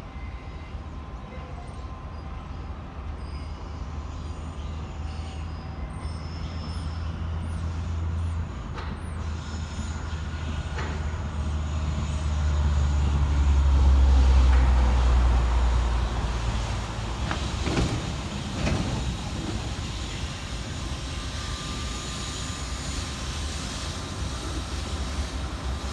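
Norfolk Southern diesel-electric locomotives running as they lead a freight train toward the listener: a low engine rumble that grows to its loudest about halfway through, then eases a little.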